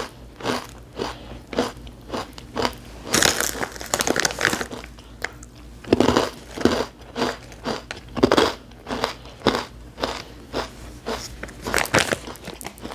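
Close-up crunching and chewing of a crunchy snack of roasted edamame and almonds, a quick run of crisp bites and chews, a couple to a few a second.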